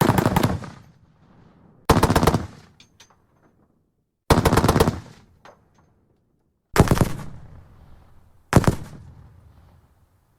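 Browning M2 .50-calibre heavy machine gun firing five short bursts of rapid shots about two seconds apart, each burst trailing off in an echo.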